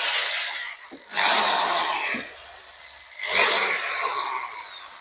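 Bosch GSB 500 RE 500-watt corded impact drill run free in hammer mode in short trigger bursts, starting up again about one and three seconds in. Each burst is a loud rattling run whose motor whine jumps up at once and then falls steadily as it winds down.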